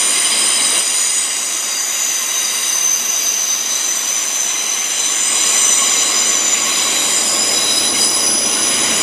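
Heathrow Express Class 332 electric train moving through the station, with a steady high squeal made of several tones held together over the rumble of the train.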